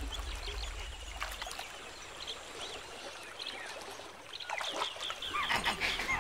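Wetland ambience: short, high chirping calls, thin at first and growing busier after about four and a half seconds, over a faint trickle of water. A low background drone fades away in the first two seconds.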